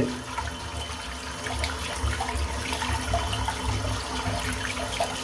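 Tap water running steadily into a sink, with faint small splashes.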